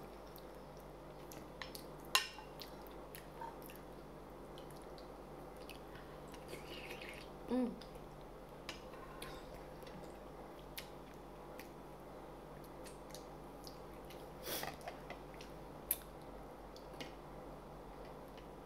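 Close-up eating sounds of noodle soup: soft, scattered mouth clicks and chewing, with a few sharper clicks, the loudest about two seconds in, and a short hummed "mm" a little before the middle.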